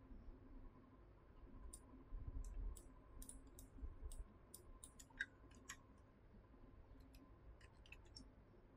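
Faint clicks of a computer mouse, a run of them starting about two seconds in, then a short pause and a few more near the end, over quiet room tone.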